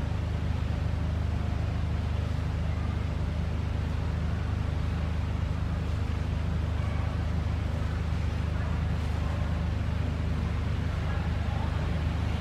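A steady low mechanical hum of a running engine, unchanging throughout.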